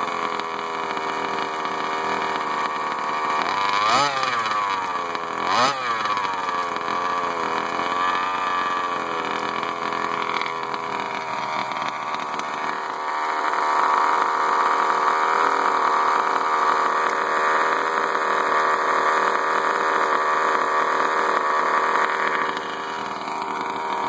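Small two-stroke petrol engine of an HPI Baja 5T 1/5-scale RC truck idling, with two quick blips of the throttle about four and five and a half seconds in. From about thirteen seconds until near the end it runs steadily louder and noisier. This is the engine with the strange rattle that the owner heard after running it wide open.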